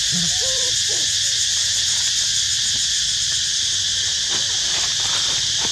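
Steady, shrill insect chorus in dense vegetation, running evenly throughout, with a few faint short chirping calls in the first second.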